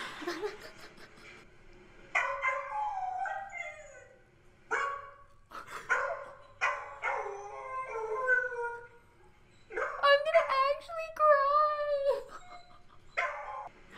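Dogs howling: a series of long, drawn-out wavering howls of a second or two each, the longest and steadiest near the end. It is separation howling of dogs left alone at home, which one owner hears as sad wailing.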